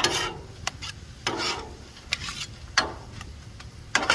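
Spatula scraping and stirring sticky bourbon bacon jam across the steel top of a Blackstone griddle, in short repeated strokes about once a second, over a faint sizzle.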